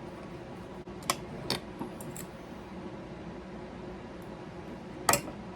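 Several light clicks and clinks of utensils and dishes being handled at the table, the loudest about five seconds in, over a steady low hum.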